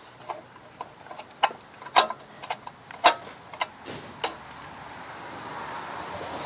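Irregular metallic clicks and clinks of hand tools and loose engine parts being handled while a snowblower engine is taken apart, the two loudest about 2 and 3 seconds in. A rising hiss follows near the end.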